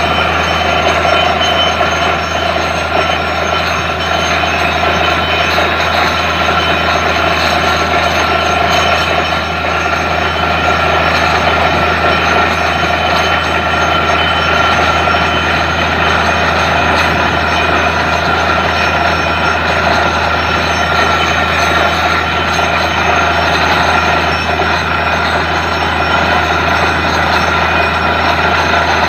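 Truck-mounted borewell drilling rig running steadily: a constant loud engine drone with mechanical clatter from the rig.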